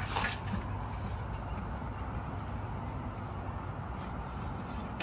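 A metal feeder drum being handled: a sharp knock right at the start and a weaker one about a second later, over a steady low rumble.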